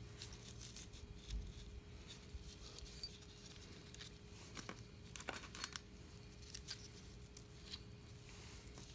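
Faint, scattered clicks and light rustling of gloved hands picking up and handling small metal parts: a power steering pump's hose fitting, bolt and washers.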